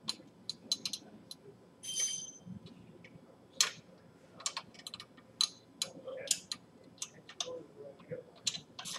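Torque wrench ratcheting on the exhaust flange nuts of the front head pipe: sharp, irregular clicks throughout, with a short metallic clink of the tool about two seconds in.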